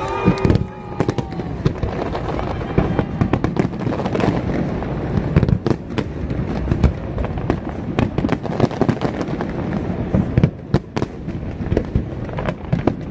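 Fireworks display: a dense, irregular barrage of bangs and crackles, with no let-up.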